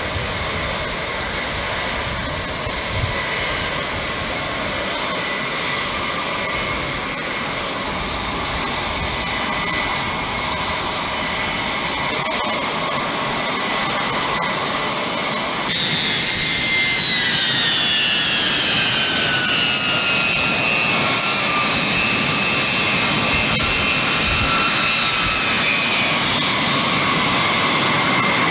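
Jet engines of Air Force One, a Boeing 707 (VC-137C), running with a steady high whine. A little past halfway it gets suddenly louder, and the whine falls in pitch over several seconds before holding steady.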